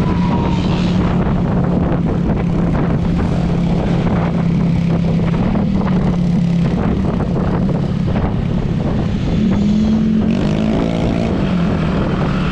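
Engine of a moving vehicle running steadily under road and wind noise. Its pitch rises briefly about ten seconds in and then falls back.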